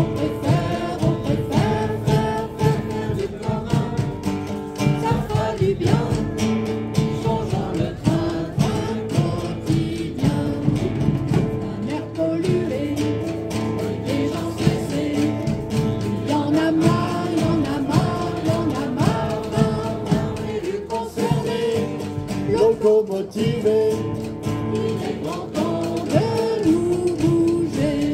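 Live singing of a French rally song with guitar accompaniment. The song calls for passenger trains on the Rhône's right bank.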